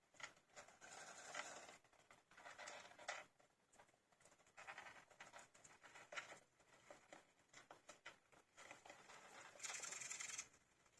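Fifteen-day-old hamster pups moving about, a faint scratchy rustling and patter that comes in irregular short bursts, with a longer burst near the end.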